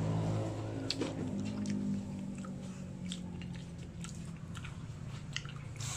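A person biting into and chewing a crispy fried-bread tuna pie, heard as a scatter of small sharp crunching clicks. A steady low hum runs underneath, fading away over the first seconds.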